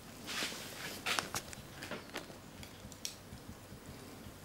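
Faint, scattered clicks and soft rustles of small handling noises, as a clear plastic jar of garlic chips is picked up and brought over.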